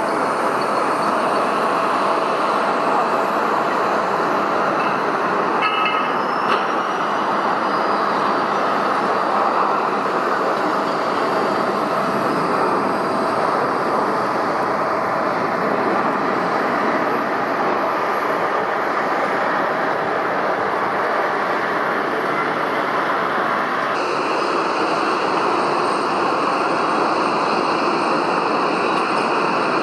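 Steady roar of jet airliner engines at the runway during landing, with a high whine that falls in pitch a few seconds in.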